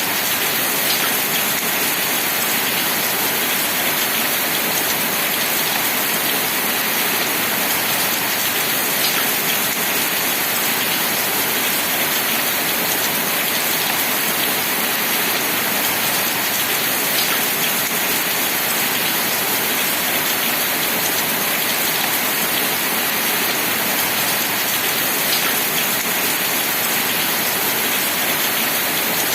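Steady, dense rain falling without a break, with a few faint ticks standing out about every eight seconds.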